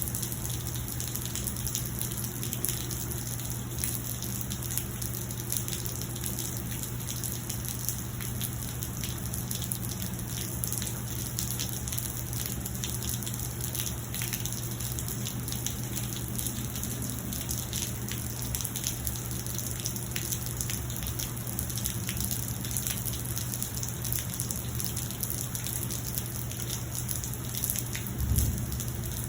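Steady rain falling, with a dense scatter of individual drops ticking over the continuous wash and a steady low hum underneath. A low thump comes near the end.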